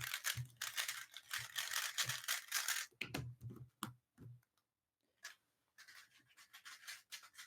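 A 3x3 speedcube being turned rapidly during a timed solve: a fast rattling clatter of plastic layer turns that thins out and briefly stops partway through, then picks up again.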